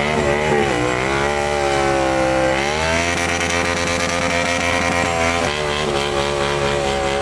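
Motorcycle engine revving with a buzzy note: the pitch dips about a second in, climbs again around three seconds, then holds at a steady high rev.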